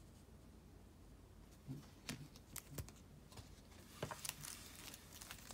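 Small, sharp plastic clicks and taps of hard card holders being handled: a few scattered clicks from about a second and a half in, then a quicker cluster of them about four seconds in.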